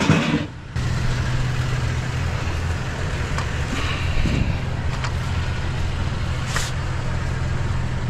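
Pickup truck engine idling steadily, a low even hum, with a short knock right at the start.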